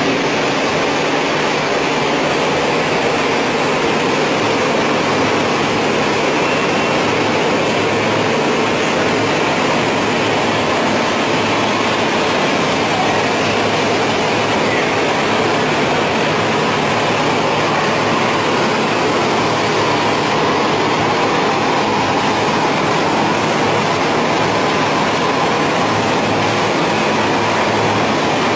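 Steady mechanical noise with a low hum from the machines of a french fries processing line running: conveyors and processing equipment.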